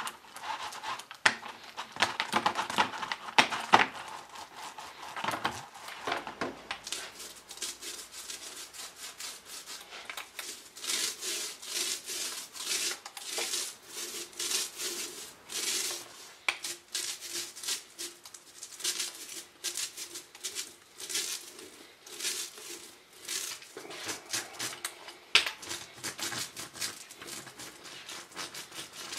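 Small foam paint roller worked in a plastic tray of wet glue, then rolled back and forth over the backs of wooden tambour slats, spreading water-soluble glue: repeated wet rubbing strokes, roughly one a second, with a faint steady hum beneath them.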